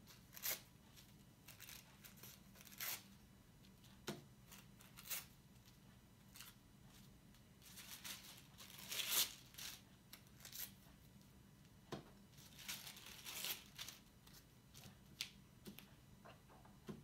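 Tissue paper torn into small pieces by hand and rustled, scattered short rips and crackles every second or so, the longest and loudest about nine seconds in.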